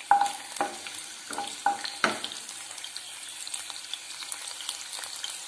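Curry leaves starting to sizzle in heating oil in a nonstick pan, a steady hiss with fine crackles. A utensil taps against the pan about six times in the first two seconds as the leaves are stirred.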